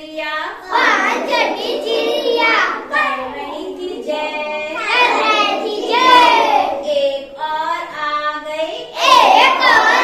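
A group of young children singing a Hindi counting rhyme together, in unison.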